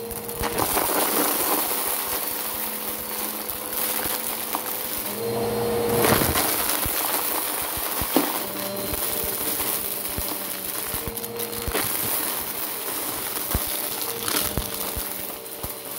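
Bissell Power Force Helix upright vacuum running over carpet and sucking up piles of small hard debris: plastic bottle caps, sequins, beads and toy bits rattle and crunch through the machine as a steady stream of clicks over the motor's hum, with louder surges about six and eight seconds in.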